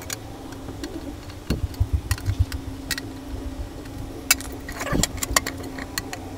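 A metal-cased automatic voltage regulator being handled: low knocks and thumps as the box is tipped over, then several sharp clicks and clacks of metal on metal, over a steady low hum.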